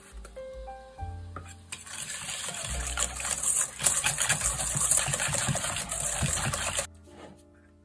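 Wire whisk beating eggs, egg yolk and caster sugar in a stainless steel bowl: fast, continuous scraping and clicking of the wires against the metal, starting about two seconds in and stopping suddenly near the end.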